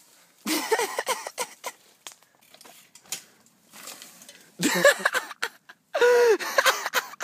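Excited yelling in several short outbursts, with a dull thud about five seconds in as a bicycle rider crashes to the ground.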